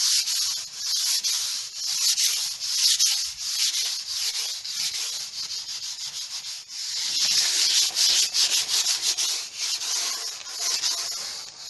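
180-grit abrasive paper rubbed by hand over hardened filler on MDF, a hissing scratch in repeated back-and-forth strokes: the final rub-down to smooth the filler off.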